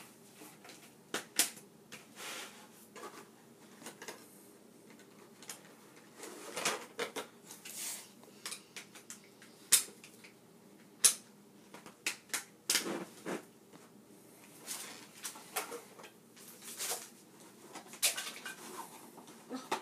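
Plastic toy track pieces being handled and fitted together: a string of irregular clicks, knocks and light rattles, with a few sharper snaps.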